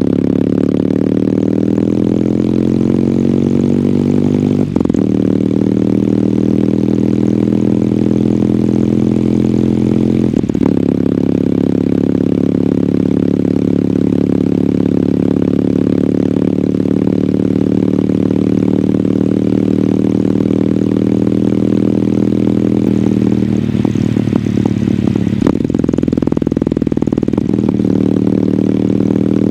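Kawasaki W800's air-cooled parallel-twin engine running through its stock exhaust while riding. The steady engine note breaks off briefly twice in the first ten seconds and comes back lower each time, as at upshifts, then holds steady at cruise. Near the end it turns rough for a couple of seconds before rising again.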